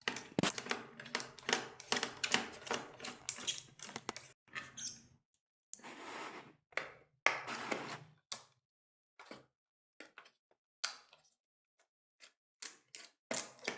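Small clicks and taps of a screwdriver turning out the two screws that hold a laptop cooling fan, with the screws and tool knocking on the chassis. The clicks are dense for the first few seconds, then sparser, with a short rustle of handling about six seconds in.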